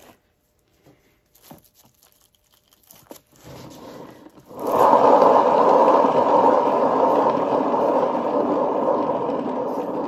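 A plastic 12-inch cake-decorating turntable being spun. A few light handling clicks come first. About four and a half seconds in, a loud steady whir of the spinning turntable starts and slowly fades as it slows.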